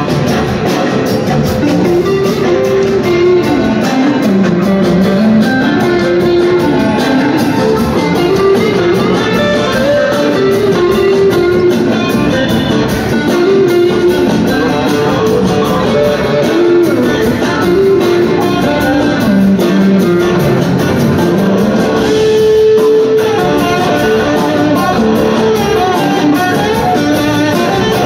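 Live rock band playing, led by an electric guitar solo line that slides up and down in pitch over the drums and bass.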